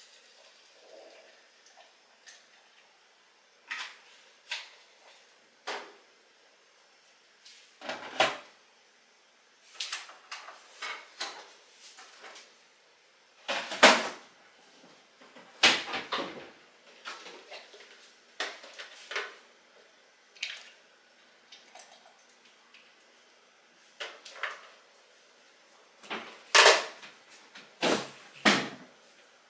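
Irregular knocks and clatter of things being handled, like drawers, cupboard doors and dishes, with the loudest knocks about halfway through and a cluster near the end.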